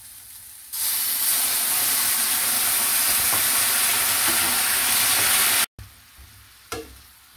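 Water hitting hot oil in a pan of frying flat beans: a loud, steady sizzling hiss starts suddenly about a second in and cuts off abruptly near the end, leaving a quieter sizzle.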